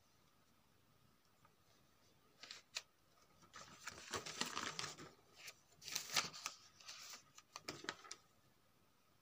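Paper rustling and crinkling in irregular bursts from about two and a half seconds in until about eight seconds in, loudest near the middle, with a faint steady tone underneath.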